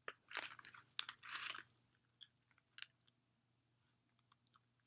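Close-up mouth sounds of someone chewing a chewy, gummy-textured jelly bean: a cluster of wet smacks and clicks in the first second and a half, then a few faint scattered clicks.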